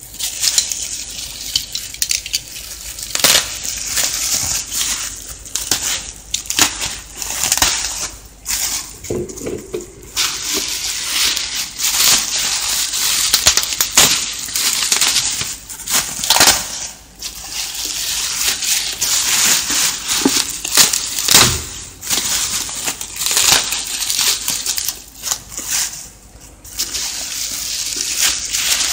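Plastic bubble wrap crinkling and crackling as it is handled and pulled back off a cardboard box, with many short sharp crackles and brief pauses.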